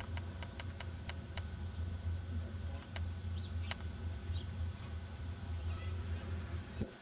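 Outdoor ambience over an open field: a steady low hum with a quick run of short, sharp high clicks in the first second and a half and a few scattered chirps. The hum cuts off suddenly just before the end.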